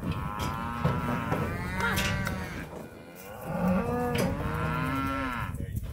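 Calf bawling: two long, loud moos, each rising and falling in pitch and lasting about two and a half seconds, with a short gap between them.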